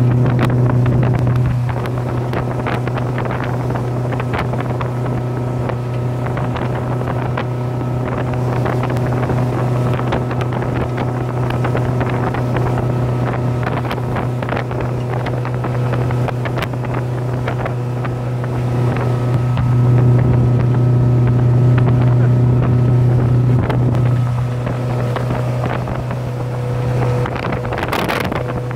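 Four Winns 180 Horizon speedboat running at a cruise speed of about 29 mph: a steady engine drone under the rush of the wake and spray, with wind buffeting the microphone. A brief louder rush comes near the end.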